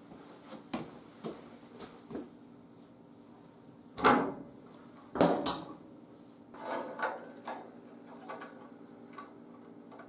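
Scattered metal knocks and clicks of a steel rod, locking pliers and a bench vise being handled while a hook is bent around a socket. Two louder clanks come about four and five seconds in, then a cluster of lighter ones near seven seconds.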